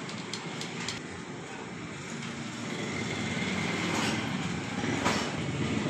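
A steady rumbling background noise that grows louder through the second half, with a few light metallic clicks as a screwdriver works the screws of a sewing machine's feed dog.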